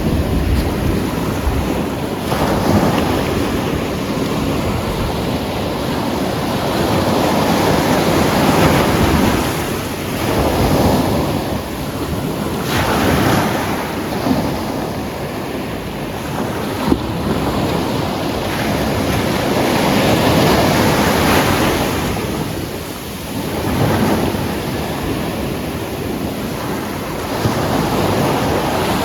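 Atlantic surf breaking on a black sand and pebble beach, waves rolling in one after another so the wash swells and fades every few seconds.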